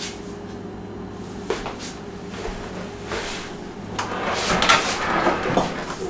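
Whirlpool side-by-side refrigerator being rolled out from the wall on its wheels: rolling and rattling noises that grow loudest from about four seconds in until near the end. A steady low hum runs underneath.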